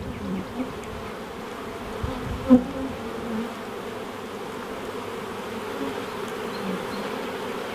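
Honey bees buzzing around an opened nuc hive as its frames are moved, a steady hum of many bees in flight. A brief knock sounds about two and a half seconds in.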